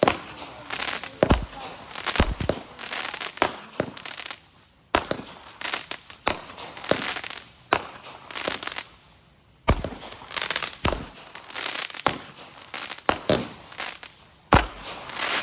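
Consumer fireworks going off: a rapid string of sharp bangs and crackles in quick clusters, with brief lulls every few seconds and a heavier boom after each lull.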